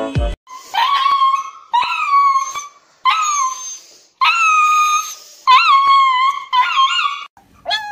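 A husky in a cone giving about seven drawn-out, howling cries in quick succession, some rising then falling in pitch, in protest while held for an injection. A snatch of music cuts off at the very start.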